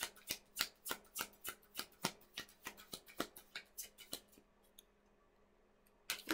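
Oracle card deck being shuffled by hand: a quick, regular run of card flaps, about three a second. It stops about four seconds in and starts again near the end.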